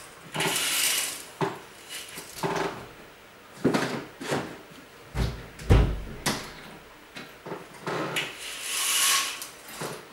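Irregular knocks and bumps of household objects being handled and moved about, with a longer scraping or rustling sound twice, in a sparsely furnished room that echoes.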